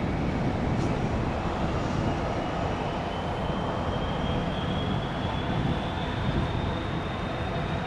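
Jet airliner engines running, a broad rumble with a thin whine that rises slowly in pitch.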